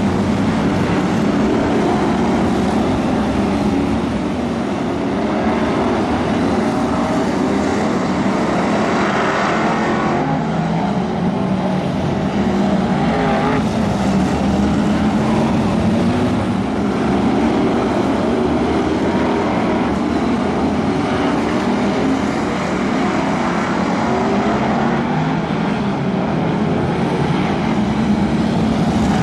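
V8 engines of a pack of BriSCA F1 stock cars racing round the oval, a loud, continuous engine noise.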